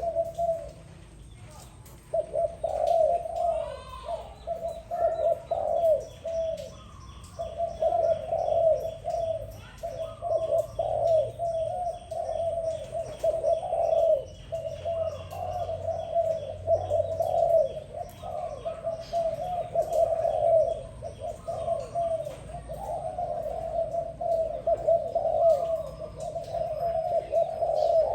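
Dove cooing in long runs of repeated low coos, broken by brief pauses, with faint high chirping behind.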